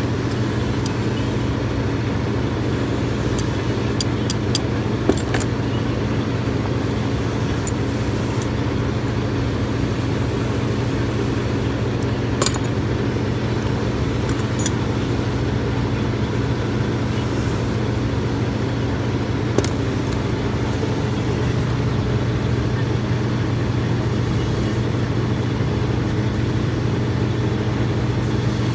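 A steady machine hum with several held tones throughout, and now and then a sharp clink as metal hand tools such as pliers and pincers are picked up and set down on a workbench.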